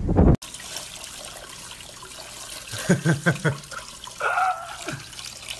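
A brief loud noise cuts off abruptly, then a kitchen sink faucet runs steadily, spraying water over a puppy being bathed. Short voice-like sounds come in about three seconds in, with a longer held one a little over four seconds in.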